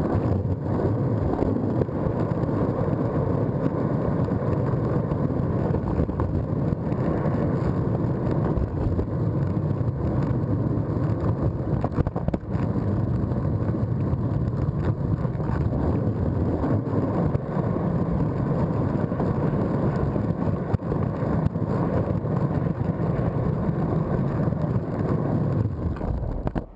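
Penny board wheels rolling over pavement, a steady loud rumble with occasional small clicks from cracks and bumps, picked up by a GoPro taped right beside the back truck.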